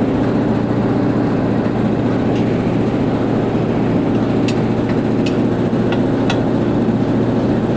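Industrial air compressor running with a loud, steady, low hum, with a few faint ticks about halfway through.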